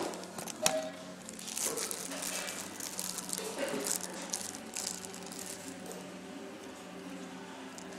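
Room noise: a steady low hum with scattered small clicks and rustles, and faint murmuring in the background.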